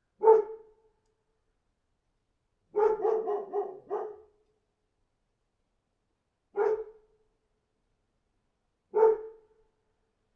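A dog barking: one bark, a quick run of about five barks a few seconds in, then two more single barks a few seconds apart, with dead silence between them.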